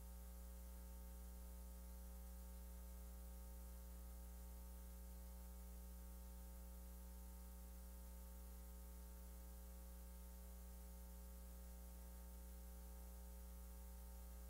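Near silence: a steady electrical hum with faint hiss, unchanging throughout; the piano is not audible.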